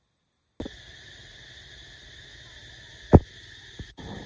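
A steady hiss cuts in about half a second in. Over it come three dull low thumps, the loudest a little after three seconds.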